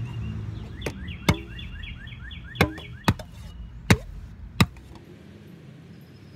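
A long-handled metal plier tool knocks and pries at the rim and lid of a metal paint can, trying to lever it open, with six sharp metallic clinks over about five seconds. A rapid run of high, falling chirps sounds behind the first few.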